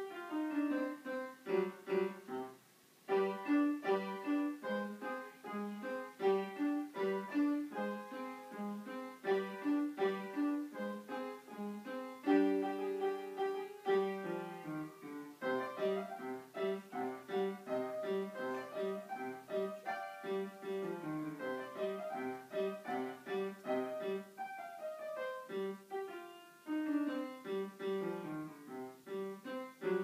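Piano playing a lively tune of quick successive notes, with a short break about three seconds in.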